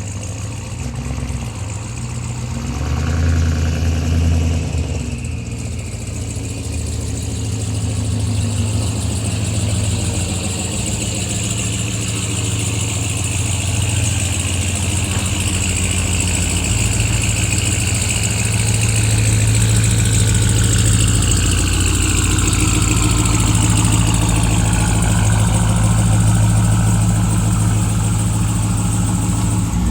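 Vehicle engine running steadily under way, with a high whine that slowly drifts in pitch; it grows gradually louder.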